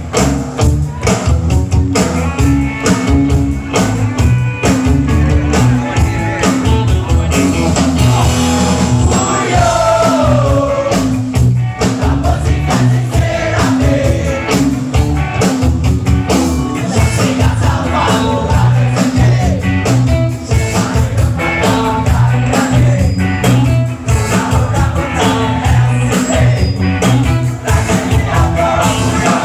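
Ska band playing live, with electric guitars, bass and drums on a steady beat and a lead voice singing over them.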